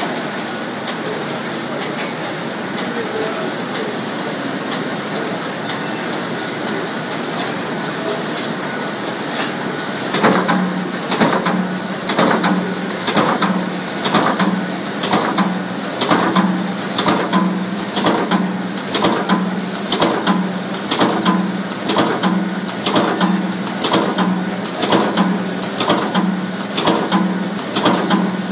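Saddle-stitching and inline trim-and-perf machinery running: a steady mechanical whir, then from about ten seconds in a regular beat of sharp strokes, a little under two a second, over a low hum. This is the SCS Trim & Perf unit cycling as it trims and perforates each multi-up booklet.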